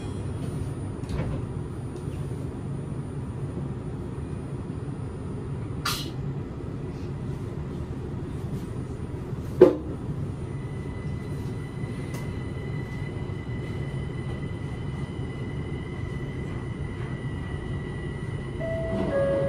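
Cabin noise of a Linimo 100-series maglev train running between stations: a steady low rumble, with a sharp click about ten seconds in and a faint high whine joining about eleven seconds in. Near the end a two-note falling chime sounds, the signal for the onboard next-station announcement.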